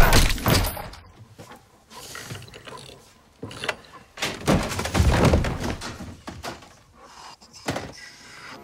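A heavy safe being worked: a loud sharp thunk at the start, then scattered clunks and knocks, with a longer noisy stretch of handling about four to six seconds in.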